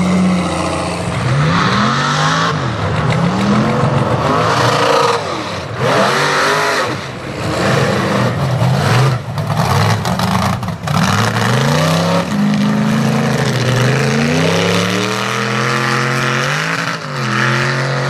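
Chevy mega truck's engine revving hard up and down, over and over, as it spins its huge tyres through mud, the revs swinging every second or two. A few short sharp cracks come around the middle.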